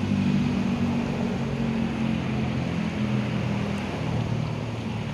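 A motor engine running steadily at a low pitch over a background of traffic hiss, slowly fading.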